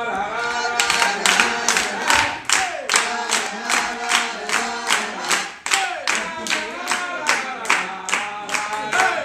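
A group of people singing a tune together while clapping along to a steady beat.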